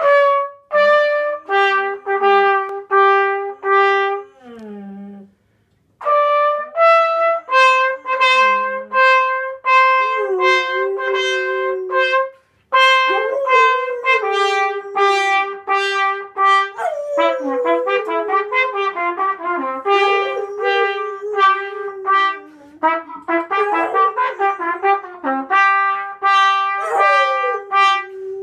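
A trumpet playing a run of short notes, then longer held ones, while a Labrador retriever howls along beneath them, her voice sliding up and down in pitch.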